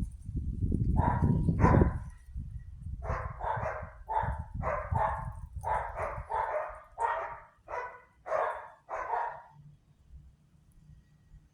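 A dog barking repeatedly, about a dozen quick barks, some in twos and threes, then falling silent near the end. A low wind rumble on the microphone is heard under the first couple of seconds.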